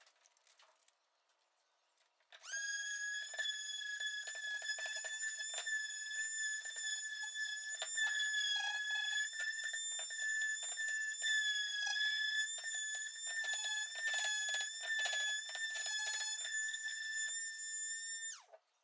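Electric palm sander with 220-grit paper switched on about two and a half seconds in, running with a steady high whine and rough scratching as it is worked over the wood for finish sanding. It winds down and stops near the end.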